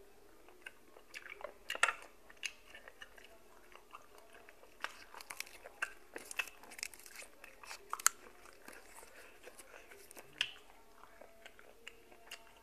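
A person chewing boiled apple snail meat close to the microphone, with sharp mouth clicks coming in two bouts: about a second in, and again from about five to eight seconds in.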